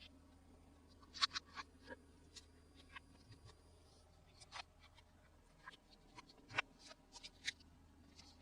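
Small objects being handled: about a dozen soft, irregular clicks, taps and light scrapes, typical of a plastic toy and its packaging being unboxed by hand. The sharpest come about a second in and again between six and a half and seven and a half seconds.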